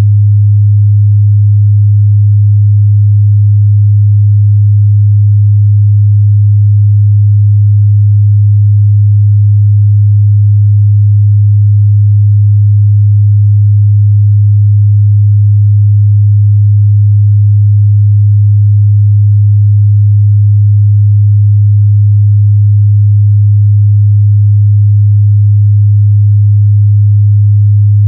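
A steady 103 Hz sine-wave test tone: one low, unchanging hum at a constant loud level.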